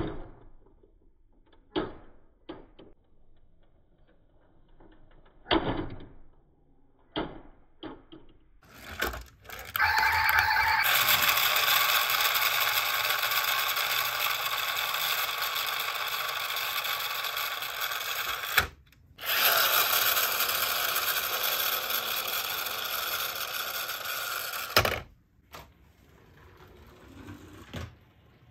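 A few light clicks and taps from handling a 1:24 diecast model SUV, then a loud, steady whirr of its pull-back motor gears spinning freely. The whirr breaks off briefly once and stops suddenly near the end.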